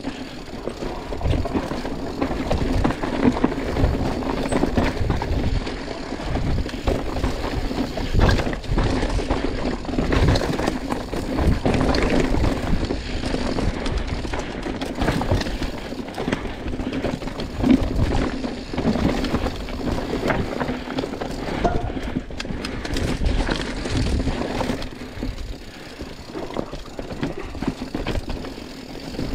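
An engine running steadily, with wind buffeting the microphone.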